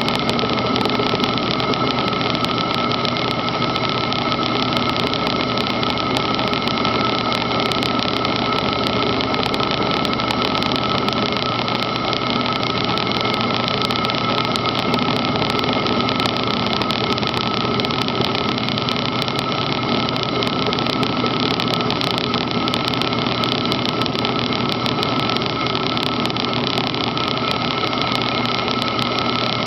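Enco manual milling machine running steadily as an end mill cuts a slot in steel, with a constant high-pitched whine over the machine's even running noise.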